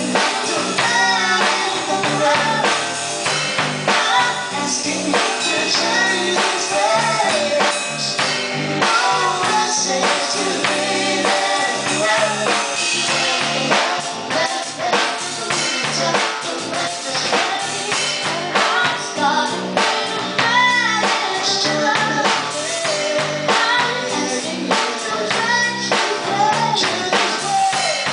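A live band playing a song together: drum kit, electric guitar and vocals sung into microphones.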